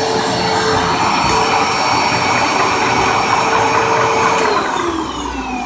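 Hoover WindTunnel bagged upright vacuum cleaner running steadily, then switched off about four and a half seconds in, its motor winding down with a falling whine.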